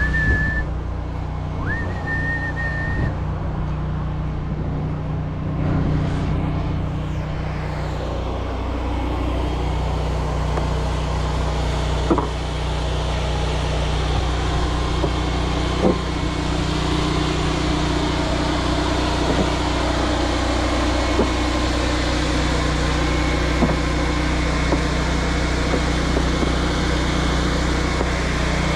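Pressure washer running: a steady low mechanical hum under the continuous hiss of the water spray, with a few faint clicks.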